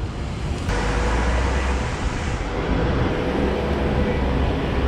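Overheated SUV radiator venting under pressure: a sudden loud hiss of steam and coolant bursts out about a second in. The sharpest part of the hiss fades after a couple of seconds while a low rushing carries on.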